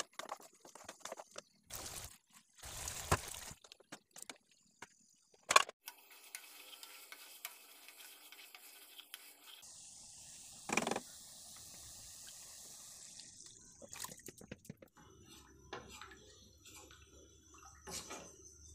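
Cooking in a wok: food sizzling with a steady hiss, a wooden spatula knocking and scraping against the pan, and liquid splashing and dripping, with several sharp knocks.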